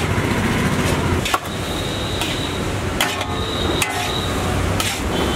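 Metal ladle knocking and scraping against a large iron wok as fried rice is stirred and tossed, about one sharp clank a second, some with a short metallic ring. Under it runs a steady rumble.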